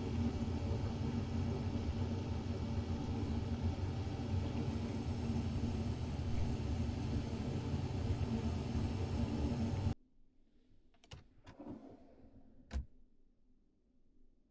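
A loud, steady motor hum that cuts off abruptly about ten seconds in, followed by a few faint clicks and knocks.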